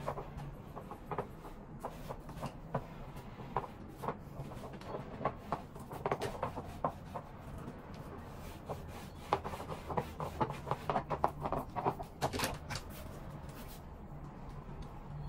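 Garment being steamed and handled on a wooden hanger at an upright garment steamer: rubbing and quick clicks of fabric, hanger and steamer head, over a steady low hum. The clicks come thickest about six seconds in and again from about nine to twelve seconds.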